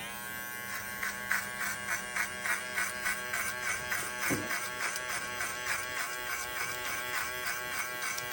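Electric hair clippers buzzing steadily during a flick-and-push fade cut, the tone swelling and dipping about three times a second with each stroke through the hair. A brief low knock sounds about four seconds in.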